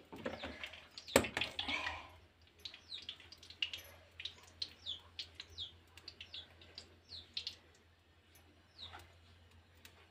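A sharp knock about a second in, then small birds chirping over and over in short, quick, downward-sliding chirps that fade out near the end.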